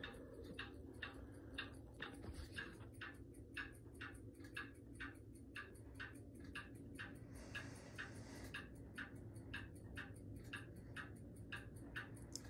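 Faint, steady, even ticking, about three ticks a second, like a clock, over a low hum. A brief soft hiss comes about seven and a half seconds in.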